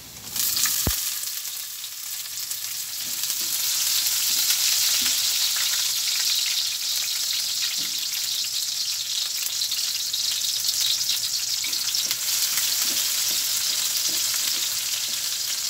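Diced onion hitting hot oil and browning garlic in a pan, starting a loud sizzle with a single knock about a second in. The onion then fries with a steady sizzle, with small scrapes from stirring.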